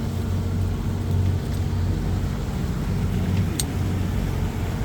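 An engine runs steadily with a low, even drone. A single sharp click comes about three and a half seconds in.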